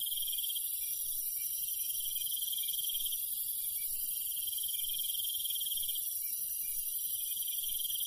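Night insects, crickets by their sound, trilling in a steady, high-pitched chorus with a fine pulse.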